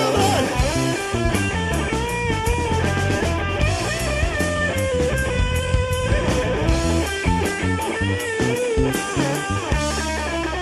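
Live rock band playing: an electric guitar plays a lead melody with bent notes over a drum kit and bass guitar.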